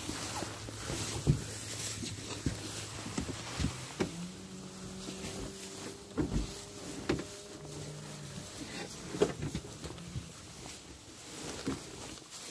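Leafy camouflage netting being lifted and shaken out, rustling, with scattered knocks and clicks. A faint steady hum runs underneath and changes pitch about four seconds in.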